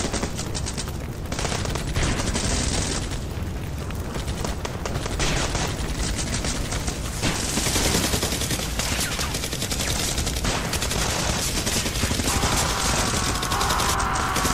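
Dense, continuous automatic gunfire from several machine guns, with bursts overlapping without a break. About twelve seconds in, a faint high whine that falls slightly joins the shooting.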